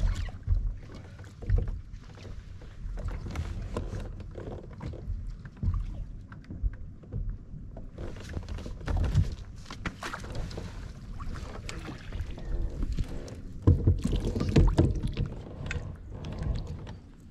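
Knocks, clicks and rubbing from an angler moving about on a plastic Hobie fishing kayak and handling gear, with a louder run of knocking about two-thirds of the way through.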